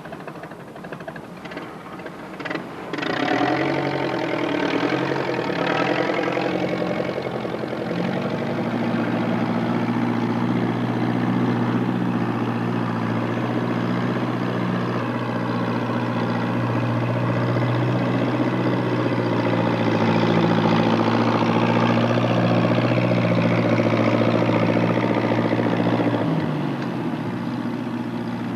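An engine running steadily with a low, even hum, coming in after a few clicks in the first three seconds and easing slightly near the end.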